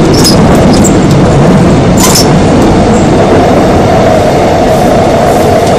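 Korail Seoul Subway Line 3 class 3000 electric multiple unit with Mitsubishi GTO inverter drive, running and heard from inside the passenger car: a loud, steady rumble of wheels and underfloor equipment, with a brief high squeak about two seconds in.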